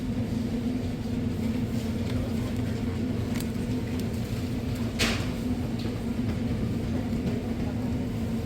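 An electric motor running steadily with a low hum, switched on abruptly just before, with a sharp click about five seconds in.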